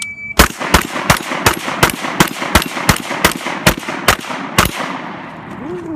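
A short electronic shot-timer beep, then a rapid string of about a dozen 12-gauge shots from a semi-automatic Vepr 12 shotgun, about three a second, ending a little past halfway.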